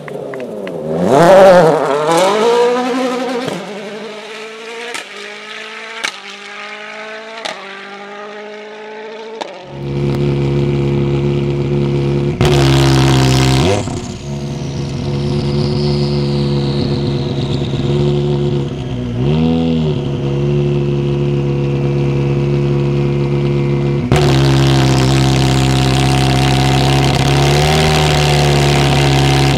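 A rally car passes at speed and accelerates away, shifting up through about six gears as it fades. Then an engine runs steadily at low revs, with a short rev about ten seconds later and a high whistle slowly falling in pitch, broken once by a loud rushing noise.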